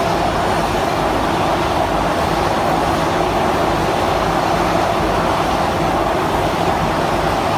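Caterpillar 432F2 backhoe loader's diesel engine running steadily, driving a hydraulic chain saw attachment.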